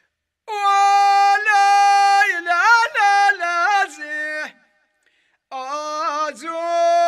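A high solo voice singing long held, ornamented phrases of Amazigh rways song, with no percussion; it breaks off about four and a half seconds in and comes back a second later.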